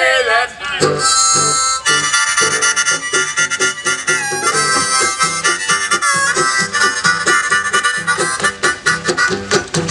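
Old-time folk music: a small brass horn carries a reedy melody over a steadily plucked banjo rhythm, after a short vocal phrase right at the start.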